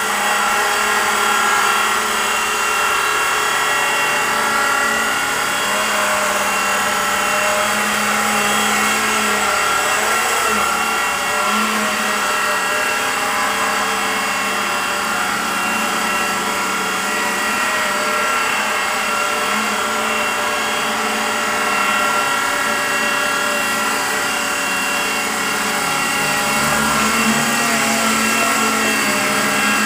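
Blade 120 SR micro RC helicopter in flight: its electric brushed main and tail rotor motors whine steadily over the whir of the rotor blades. The whine's pitch wavers up and down for a few seconds in the first half as the throttle is worked.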